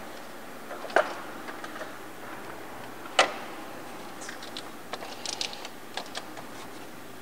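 Hands fitting a silicone hose onto an aluminium intercooler's outlet: two sharp knocks, about a second in and about three seconds in, then a scatter of light clicks and rattles.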